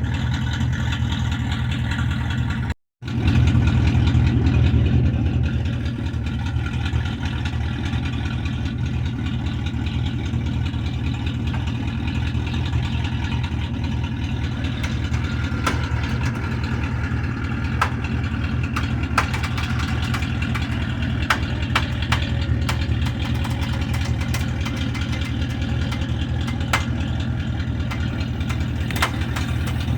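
A vehicle engine idling steadily. It is briefly cut off about three seconds in, runs a little louder for a few seconds after, then settles back to a steady idle with faint scattered clicks.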